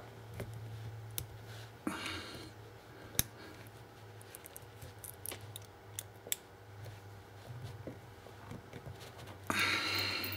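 Small steel parts of a 1911 pistol's mainspring housing clicking and scraping in the hands as the mainspring is pushed down to free its retaining pin. Scattered light clicks, with a longer scraping rustle about two seconds in and again near the end.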